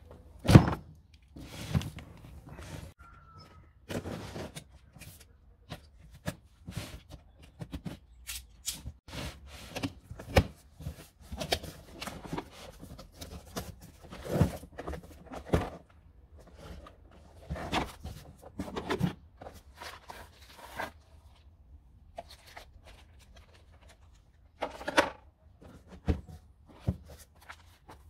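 Cardboard box handled and unpacked on stone paving: a loud thump about half a second in as it is set down, then cardboard flaps rustling and scraping and irregular knocks as the parts are lifted out.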